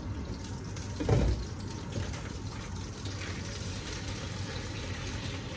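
Oil sizzling and crackling in a frying pan on high heat, with a brief clunk about a second in as the glass lid is set down.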